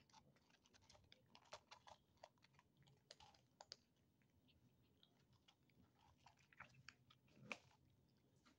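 Feral kittens chewing cat food from a foam tray: faint, irregular small clicks, with one louder tap near the end.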